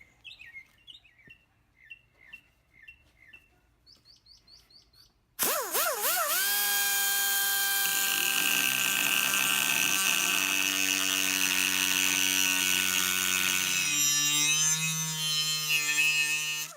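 Faint bird chirps, then about five seconds in a die grinder with a cutoff wheel starts up and cuts into a speaker magnet: a loud, steady high whine with a gritty hiss. About 14 s in, the pitch drops and wavers as the wheel is loaded, and the sound stops at the end.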